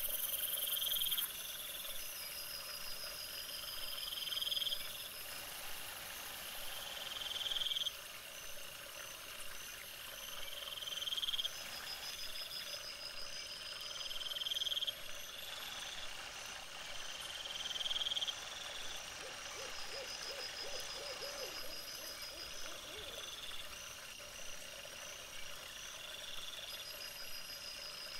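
Repeating night-time animal calls: a rising call about every three and a half seconds, with faster trilling calls between them, over a faint steady high whine.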